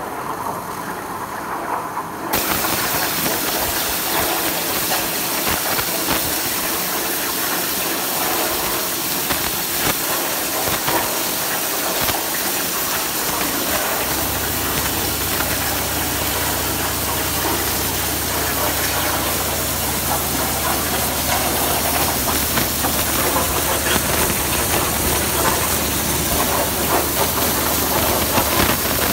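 CNC plasma cutter firing its arc about two seconds in, with a sudden loud hiss that runs on steadily as the torch cuts. A low steady hum joins about halfway through.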